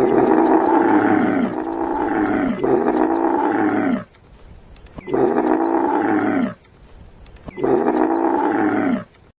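Camel grunting: three bouts of deep, falling groaning calls. The first lasts about four seconds, and two shorter ones start about five and seven and a half seconds in.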